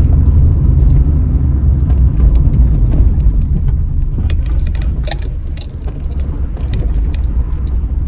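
Car cabin while driving: a steady low rumble of engine and road noise, with scattered light rattles and clicks, most of them around the middle.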